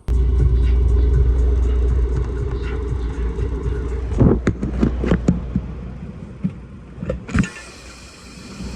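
A vehicle's engine running with a deep, steady rumble, loudest in the first half, with a handful of sharp clicks or knocks about four to five seconds in.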